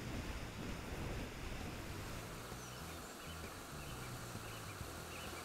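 Faint outdoor ambience: a low wind rumble on the microphone, with several short, faint bird chirps in the second half.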